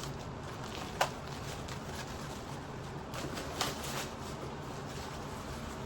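Packaging and products being handled by hand: rustling, with a sharp click about a second in and a few short scrapes around three and a half seconds, over a steady low hum.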